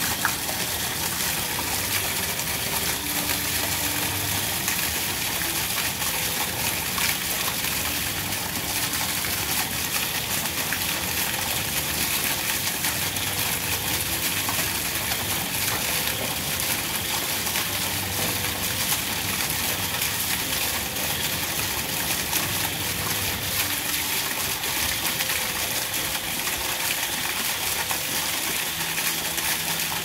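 Small garden fountain splashing: a steady, continuous rush of falling water.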